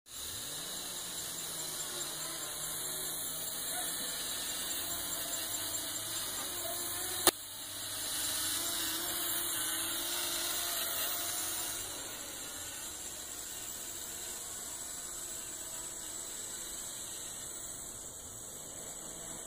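Micro quadcopter's small motors and propellers whining steadily at a high pitch, a little louder for a few seconds midway. One sharp click comes about seven seconds in.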